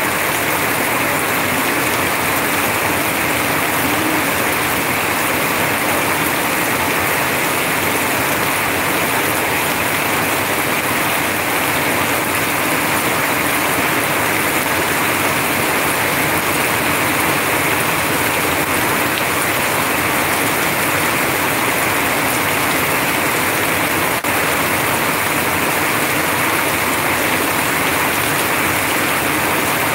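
Heavy rain falling steadily, with runoff pouring in streams from a roof edge and splashing below.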